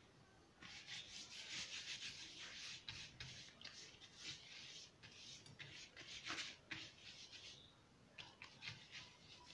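Fingers rubbing ghee over a wilted banana leaf: faint, soft swishing strokes in quick succession, starting about half a second in, easing off near the end and then a few shorter strokes.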